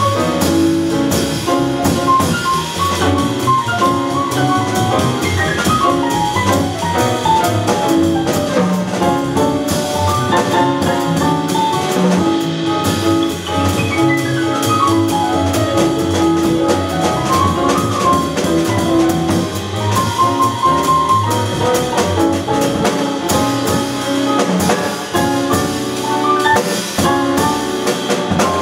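Live small-group jazz: acoustic piano playing quick up-and-down runs, accompanied by double bass and drum kit.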